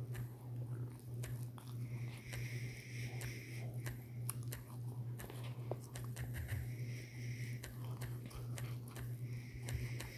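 Soft, irregular clicks and taps of typing on a phone's on-screen keyboard, over a steady low hum.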